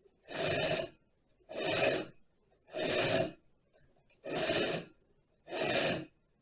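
Heavy, regular breathing close to the microphone, about one breath every 1.3 seconds.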